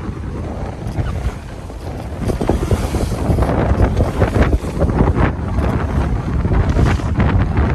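Strong wind buffeting the microphone aboard a sailing yacht, with water rushing and splashing along the hull as it sails upwind in strong wind.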